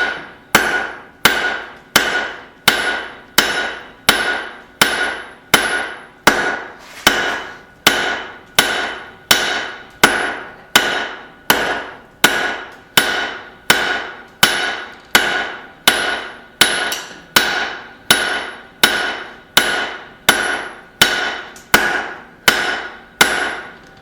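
Blacksmith's hammer striking hot high-carbon rebar on an anvil in a steady rhythm of about one and a half blows a second, each blow ringing briefly. The blows are drawing out a tong jaw, and this hard steel moves slowly under the hammer.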